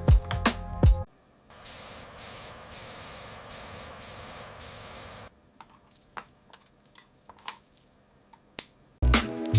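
Spray can hissing in a run of short bursts with brief pauses between them, followed by a few faint clicks and taps. Background music cuts out about a second in and comes back near the end.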